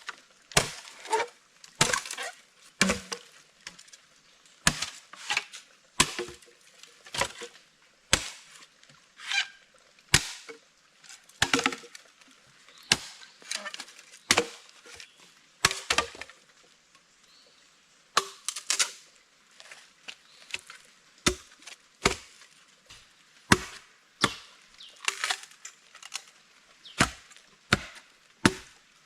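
Repeated chopping of wood with a blade: sharp single chops roughly once a second, unevenly spaced, with a couple of short pauses.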